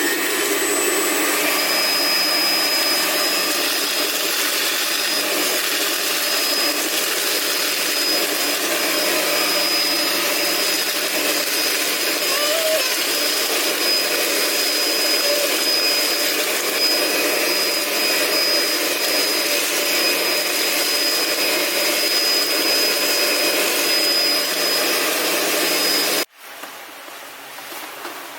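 Homemade bottle vacuum cleaner with a high-speed motor and fan running flat out: a steady noise with a thin, high whine over it, cutting off abruptly about two seconds before the end.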